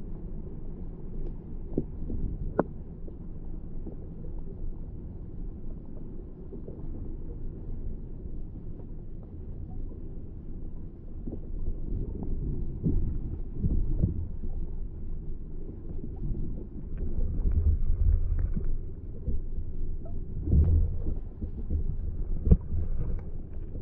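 Muffled low rumble of moving water picked up by a GoPro held underwater, swelling now and then, with a few sharp clicks and knocks against the housing.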